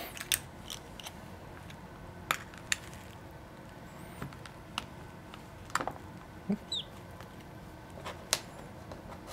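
Scattered sharp clicks and taps of plastic pry tools and an opening pick working under the edge of a Nintendo Switch's glued touch screen, about six in all, with one brief falling squeak a little before seven seconds in.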